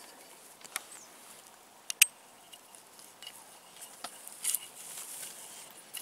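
Faint rustling and scuffing in moss and undergrowth with a few sharp clicks, the loudest about two seconds in, and a brief louder rustle around four and a half seconds in.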